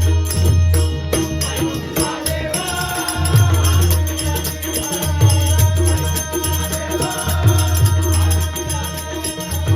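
Marathi devotional bhajan: voices singing an abhang together over a steady drum beat and jingling hand cymbals.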